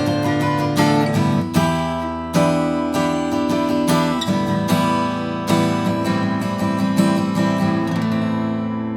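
Steel-string acoustic guitar from Journey Instruments' foldable travel line being played: a run of picked and strummed notes and chords, ending on a chord left to ring out near the end.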